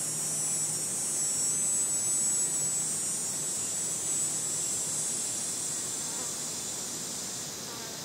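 A cicada's high, steady buzzing call, loudest a couple of seconds in, then fading and dying away shortly before the end.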